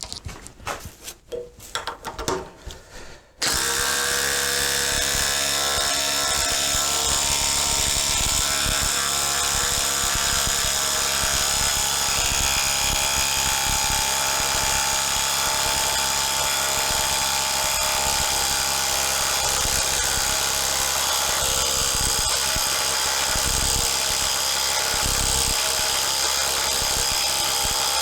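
A few light knocks, then about three seconds in a Ryobi ONE+ HP brushless impact driver starts up and runs continuously to the end, its hammer impacting in a fast, even rattle with a steady whine.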